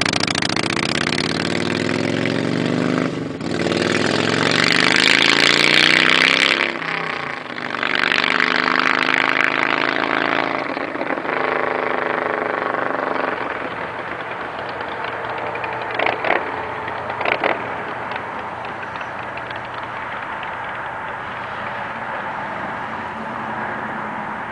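Custom chopper motorcycle accelerating away through the gears: the engine note climbs in pitch again and again, with a short dip at each gear change, then fades steadily into the distance. Two short sharp sounds stand out about two-thirds of the way in.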